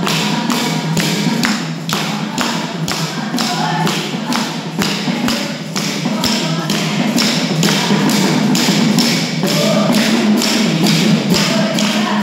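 Children singing together in a group to a barrel drum, with a steady beat of sharp strokes about three to four a second.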